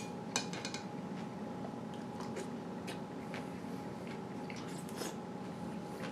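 A metal spoon clinks against a cereal bowl about half a second in. Wet chewing and smacking of cereal in milk follows, with scattered small clicks.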